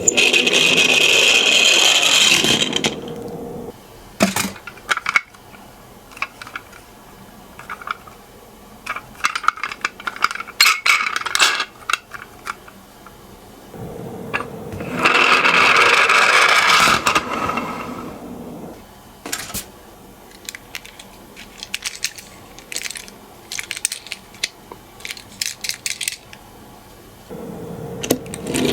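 Toy minicars rolling down a slope with a rattling rumble that swells for two or three seconds at the start, again about halfway through and near the end. Scattered small clicks and clatters come in between.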